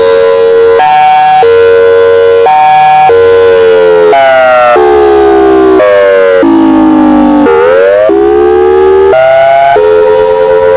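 Federal Signal Thunderbolt 1002B outdoor warning siren sounding a hi-lo signal, alternating between a low and a high tone about every two-thirds of a second. Midway the whole alternating pitch sags lower and lower, then climbs back up, and the hi-lo alternation carries on.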